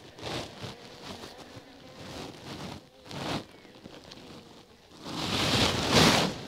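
Bee-suit fabric rustling and brushing close to the microphone in three bursts, the last and loudest about five to six seconds in, over a faint steady hum of honeybees from an open nuc.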